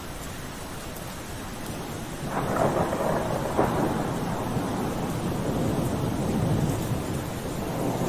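Steady rain with a roll of thunder that swells about two seconds in, with a couple of sharper cracks early on. The thunder rumbles for several seconds and eases off near the end.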